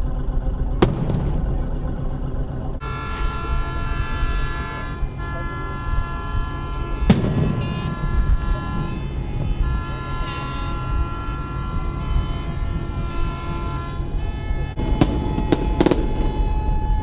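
Daytime firework rockets bursting overhead in sharp bangs: one about a second in, one about midway, and three in quick succession near the end. Between them, long steady tones sound from about three seconds in until about fourteen, with short breaks, over a constant low engine rumble.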